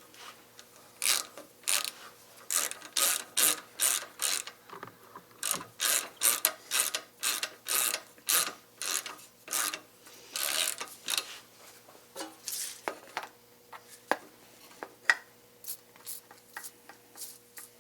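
Ratchet wrench being worked back and forth in short strokes, its pawl clicking in quick rasping bursts about twice a second, thinning out to fainter, sparser clicks near the end.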